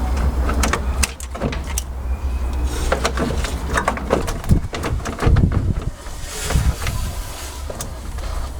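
Scattered clicks, knocks and clunks of hands working on the car's radiator and surrounding parts, with a few deeper thuds around the middle. A low rumble fades out about a second in.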